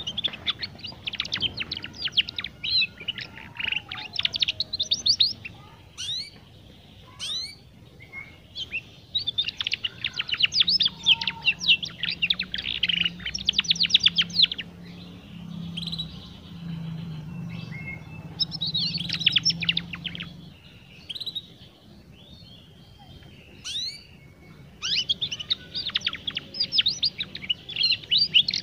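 Young domestic canary twittering its learning song: four bursts of rapid, scratchy trills with short pauses between.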